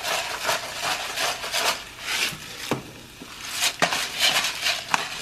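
Salt and pepper being ground over a pot with a hand-twisted mill: a dry rasping grind in quick repeated bursts, easing off for about a second midway before starting again, with a couple of light ticks.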